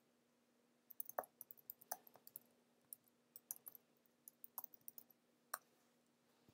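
Computer keyboard typing: a faint run of quick, irregular key clicks starting about a second in and stopping after about five and a half seconds, over a faint steady hum.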